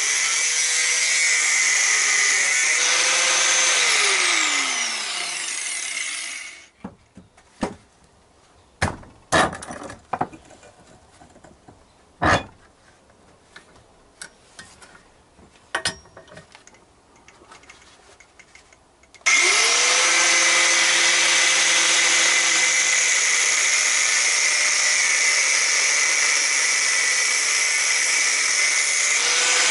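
Angle grinder with a cut-off disc cutting steel tube, a loud steady whine. About four seconds in it is switched off and winds down with a falling tone, then there is a long lull with a few sharp knocks and clicks. Near two-thirds of the way through it starts again at once and cuts on.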